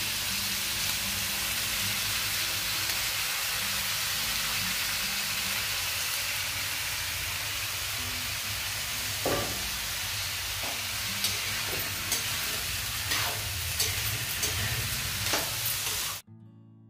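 Potato, cauliflower and peas frying in oil in a kadhai, a steady sizzle, with a metal spoon stirring and knocking against the pan in a scatter of clicks from about nine seconds in. The sound cuts off suddenly just before the end.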